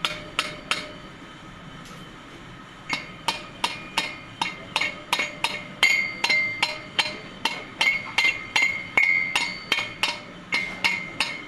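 A hammer tapping on the valve stem tips of a freshly assembled three-cylinder head, one valve after another, to check that the spring keepers are seated and won't pop out. Sharp metallic taps at about two to three a second, some ringing, with a pause of about two seconds near the start.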